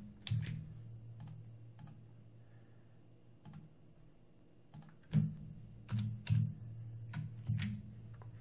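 Scattered computer keyboard and mouse clicks over a faint steady low hum, the loudest clicks coming in a cluster from about five to seven and a half seconds in.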